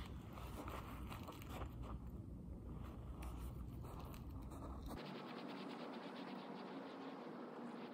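Snow crunching and scraping under hands and feet, with wind rumbling on the microphone. About five seconds in the sound cuts abruptly to a quieter, steadier hiss with a low hum.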